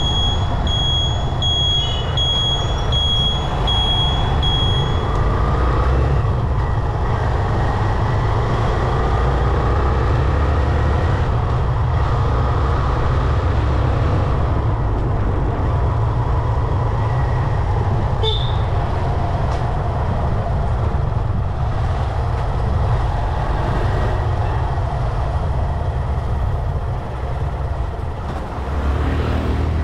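Road and traffic noise heard from a moving motorbike: a steady low rumble with a haze of passing vehicles. A high-pitched electronic beep repeats for the first few seconds, and there is one short click about two-thirds of the way through.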